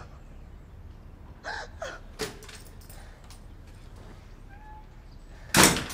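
A person gasping for breath a couple of times, a sharp click and a few faint ticks, then a single loud, sudden burst of noise shortly before the end.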